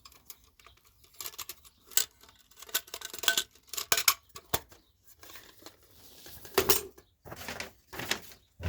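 Used hand tools being picked up and handled: irregular metal clinks, taps and rustles, a few louder knocks among them.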